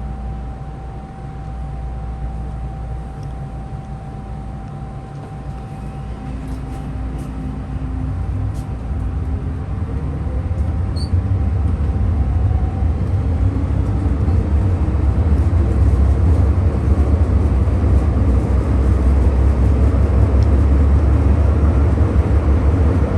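MTR electric train pulling away and picking up speed. The traction motors whine, rising in pitch from about six seconds in, over a low wheel-and-track rumble that grows steadily louder.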